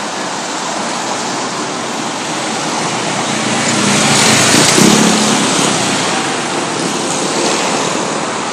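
Road and traffic noise from a moving vehicle: a steady rush of engine, tyre and wind noise, swelling about four to five seconds in as a nearby engine passes close among scooters and cars.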